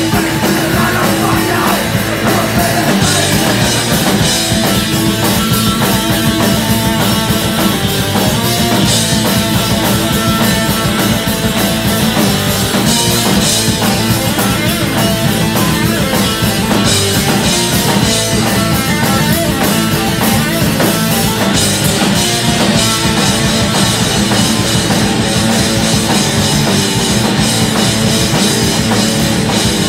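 Live rock band playing loudly and steadily: two electric guitars, an electric bass and a drum kit.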